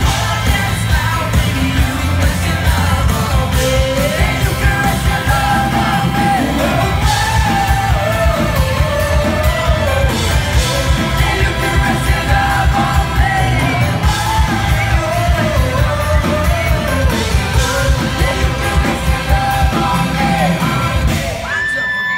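Pop-rock band playing live, with a male lead singer over drums, bass and electric guitar, heard from within the audience; the drums and bass stop about a second before the end.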